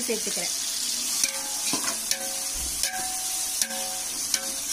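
Tomatoes and onions sizzling in hot oil while a slotted metal spoon stirs them in a large metal pot. About six strokes knock against the pot, each leaving a short metallic ring.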